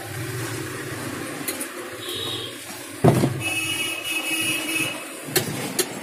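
Top-loading washing machine with a newly replaced gearbox, switched on and running with a low steady hum. A sudden clunk comes about three seconds in, and two sharp clicks near the end.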